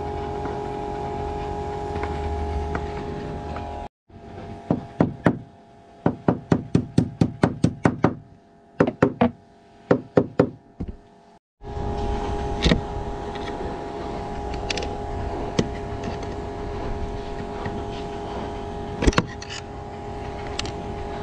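Steady mechanical hum with two constant tones. From about 4 to 11 seconds in it gives way to a quick run of sharp clicks, about five a second, from a hand tool working the mounting nuts under a deck-mounted Spinlock rope clutch.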